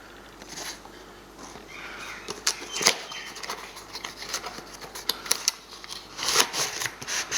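Packaging being handled and opened: irregular rustling and crinkling with sharp clicks, one clack about three seconds in, getting busier near the end.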